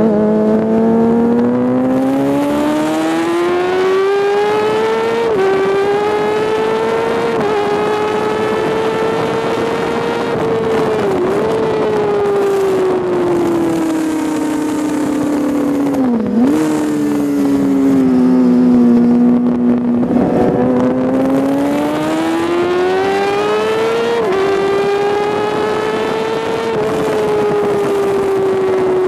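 Sport bike engine running at track speed, heard from the onboard camera over steady wind rush. The revs climb and step down quickly at each upshift, about five seconds in, again about two seconds later and again near the end, with brief rev blips on downshifts into corners around the middle.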